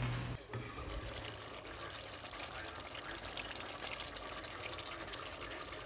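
Beef stew simmering in a stainless steel pot, bubbling and crackling steadily.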